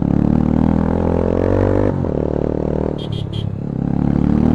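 Bajaj Pulsar 220's single-cylinder engine breathing through an aftermarket Akrapovic exhaust, the revs climbing under throttle. About two seconds in they drop sharply, then climb again near the end. Three short high beeps sound about three seconds in.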